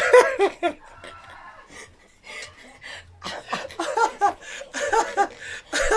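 Two men laughing hard: a burst of laughter at the start, a lull, then a run of short laughs from about halfway through.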